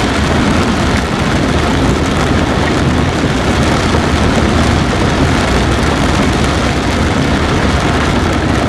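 Vehicle driving along a flooded gravel road in heavy rain: a steady rushing of rain and tyres in water over a low engine hum.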